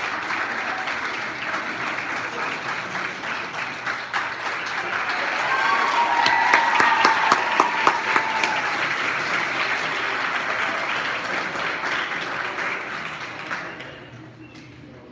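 Audience applauding, growing louder in the middle and dying away near the end.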